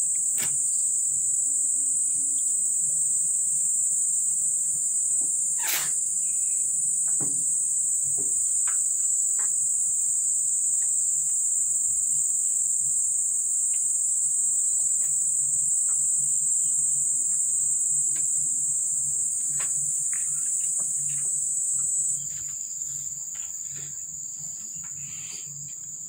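Steady high-pitched insect shrilling that carries on without a break, easing a little in loudness and pitch near the end. Faint scattered clicks and taps sound over it, with one sharp click about six seconds in.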